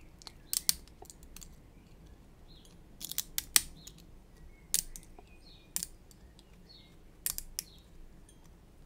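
Sharp snips of hobby cutters nipping the casting columns off a resin main undercarriage leg, about eight irregularly spaced clicks with a cluster near the middle.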